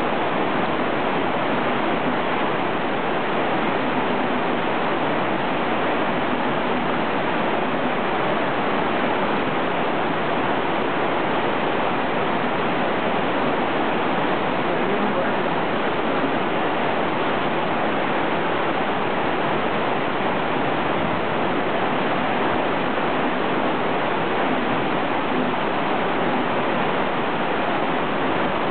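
Steady rush of a fast-flowing river running over rocks, an even unbroken roar of water.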